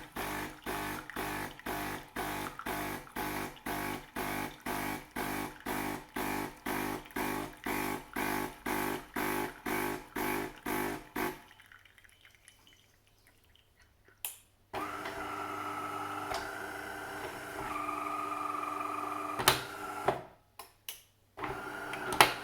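The newly replaced vibratory water pump of a De'Longhi Caffè Corso (ESAM2800) espresso machine pumping water, pulsing about two and a half times a second for roughly eleven seconds. After a short pause it runs as a steady hum with water flowing, broken by a few sharp clicks. The pump is working again after the replacement.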